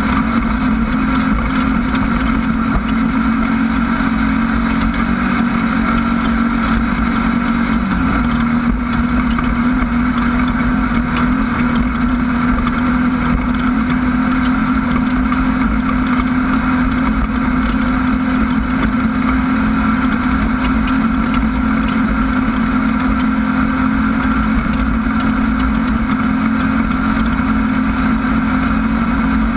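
Engine of a Class 1600 desert race car, a 1600 cc air-cooled Volkswagen flat-four, running steadily under load. Its pitch dips briefly about eight seconds in, then holds steady again.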